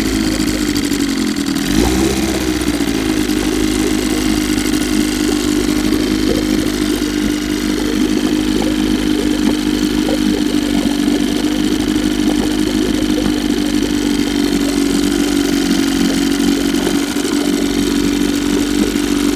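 Old Evinrude 7.5 hp two-stroke outboard motor running steadily in a test barrel. It runs gravity-fed instead of through its fuel pump. Its speed dips and recovers briefly about two seconds in, then holds an even note.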